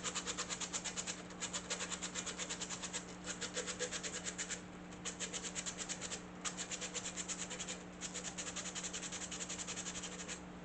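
Emery cloth rubbed fast back and forth in the bores of a table saw's motor bracket: rapid scratchy strokes, several a second, in runs with brief pauses.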